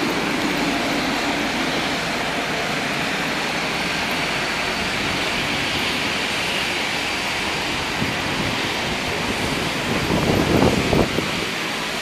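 Steady rushing outdoor noise of a rainy airport apron, rain and aircraft engine noise blended into one even hiss, with a louder rumbling swell near the end.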